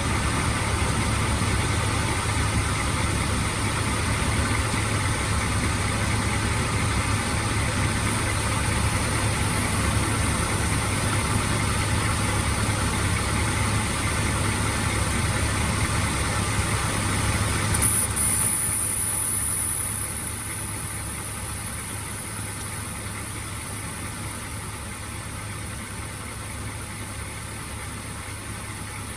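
Mazda MX-5 engine idling steadily with a gear engaged, turning the manual gearbox during a transmission flush. About 18 seconds in, a thin high whine comes in and rises in pitch. The sound drops a little quieter a couple of seconds later and comes back up near the end.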